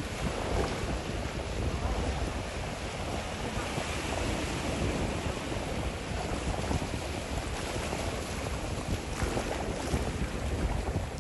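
Wind buffeting the microphone with a steady low rumble, over shallow seawater lapping and sloshing.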